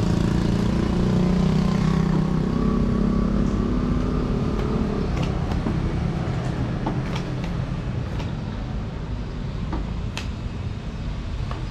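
A motor vehicle engine running on the street, loudest at first and fading away over several seconds, with a few light clicks and taps later.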